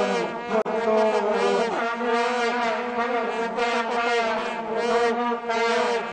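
Vuvuzela drone: a loud, continuous buzzing horn note that wavers slightly in pitch.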